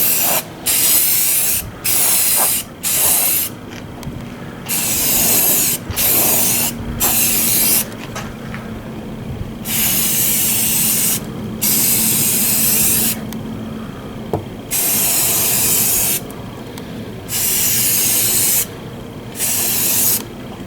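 Primer sprayed in about a dozen hissing bursts of a second or so each, with short pauses between passes. A steady low hum underneath stops a little over two-thirds of the way through.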